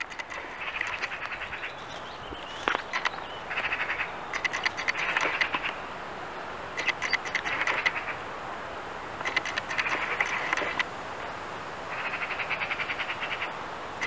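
Rapid pulsed trilling animal calls in bouts of about a second, repeating about six times at intervals of two to three seconds, over a steady outdoor hiss with a few sharp clicks.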